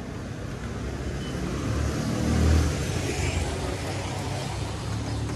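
A motor vehicle driving past close by in street traffic, its engine and tyres swelling to a peak about two and a half seconds in and then fading.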